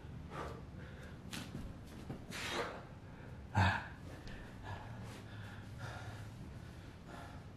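A man breathing hard through push-ups, with sharp, gasping exhalations about once a second. The loudest comes about three and a half seconds in. After that the breathing is quieter and heavier as he rests on his knees.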